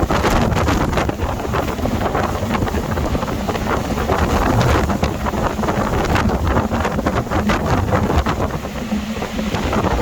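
Gale-force storm wind buffeting the microphone in gusts, a loud rumbling flutter, with the sea surging underneath.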